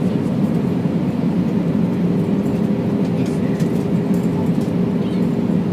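Steady drone of an airliner cabin on the approach into landing, from engine and airflow noise, with a steady hum running through it.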